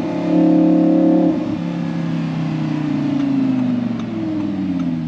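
Audi R8 V10 Spyder's 5.2-litre V10, with an ASG valved exhaust, running on the road. It is louder under throttle about half a second in, then eases off with its note slowly falling, and the pitch shifts again near the end.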